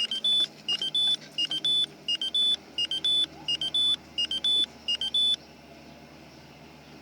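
Electronic warning chime: groups of three short beeps, each a step higher than the last, repeating about every 0.7 s, then stopping about five seconds in, leaving a faint steady hum.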